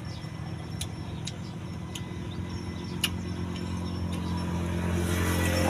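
A motor vehicle engine running with a steady low hum that grows louder toward the end, with a few faint clicks over it.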